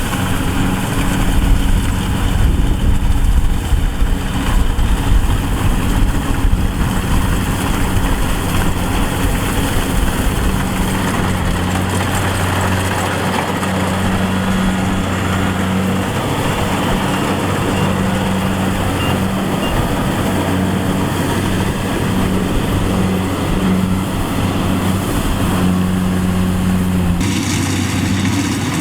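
Engine of a rice harvesting machine running steadily, a constant hum over a dense mechanical noise. The sound changes abruptly near the end.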